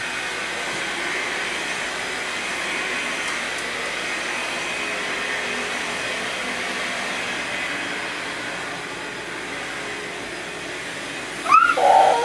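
Vacuum cleaner motor running steadily with an even rushing hiss. Near the end a short, loud voice cuts in.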